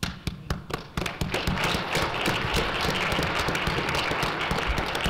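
Audience applauding. Scattered claps at first build into steady applause after about a second.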